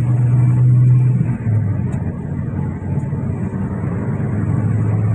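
Vehicle engine and road noise heard from inside the cab while driving, a steady low hum whose pitch drops slightly about a second and a half in.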